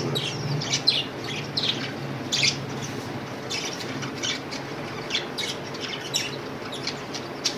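Budgerigars chirping and squawking in quick, scattered calls, over a low steady hum.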